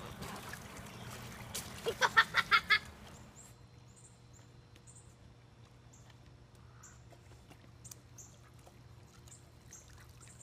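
A quick run of about six sharp animal calls about two seconds in, then quiet with faint high chirps repeating every half-second or so.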